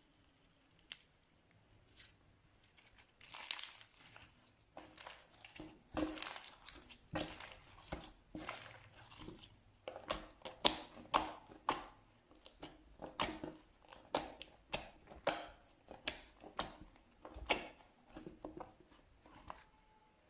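Slime being squeezed and pressed by hand, giving irregular crackling and popping: a few isolated pops at first, then a dense run of crackles from a few seconds in.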